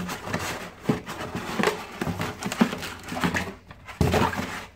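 Cardboard box and moulded pulp insert scraping, rustling and knocking as a boxed unit is pulled out by hand, with a heavier knock about four seconds in.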